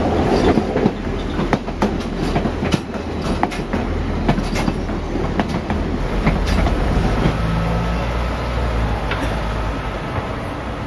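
Passenger train running along its track: a steady rumble with the wheels clacking and clicking over the rail joints.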